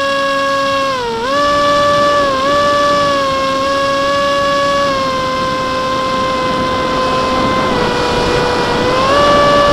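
Electric motor and pusher propeller of an F-27 Stryker flying wing, heard from its onboard camera, whining at steady throttle over a rush of wind noise. The pitch dips briefly about a second in and again a little over two seconds in, then rises near the end as the throttle is opened.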